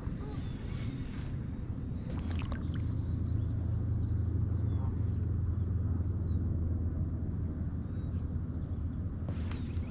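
A low, steady motor hum that grows stronger about two and a half seconds in and eases near the end, with small birds chirping throughout.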